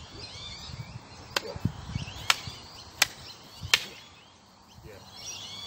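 A long wooden training stick cracking against a blocking umbrella four times in quick succession, sharp clacks roughly three-quarters of a second apart, as strikes are parried.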